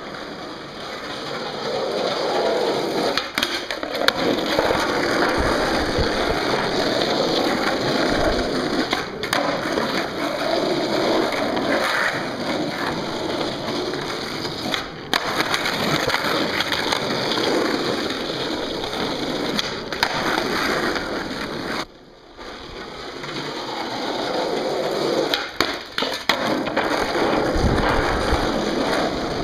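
Skateboard wheels rolling steadily over pavement, with sharp clacks of the board several times.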